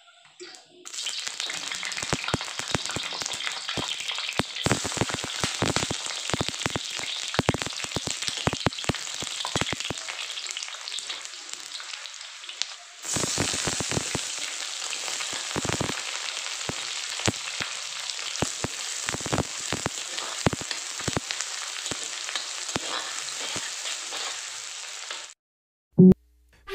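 Hot oil sizzling and crackling in a kadai, with a louder, denser sizzle about halfway through as sliced onion, garlic and whole spices fry in it. The sizzle stops shortly before the end, followed by a short thump.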